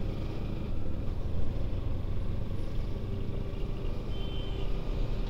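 Kawasaki Ninja 300's parallel-twin engine running steadily at low revs in stop-and-go traffic, a low rumble mixed with the surrounding traffic. A steady hum joins in about three seconds in.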